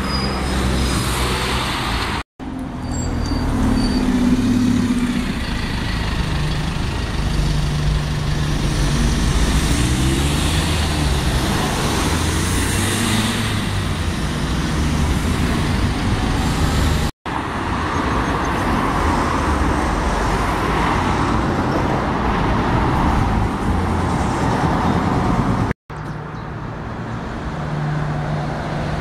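Diesel buses and road traffic driving past, engines running with their pitch rising and falling as they pull away and change gear. The sound is cut off abruptly three times between separate roadside takes.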